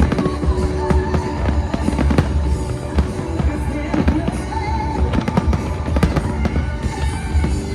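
Aerial fireworks going off in quick succession, a dense run of bangs and crackles over a constant low rumble, with music from the show's loudspeakers playing underneath.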